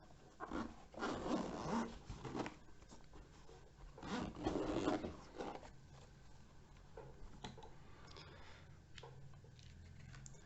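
The zipper of a GoPro carrying bag being pulled open in two long strokes, about a second in and about four seconds in, followed by faint rustling and small clicks as the contents are handled.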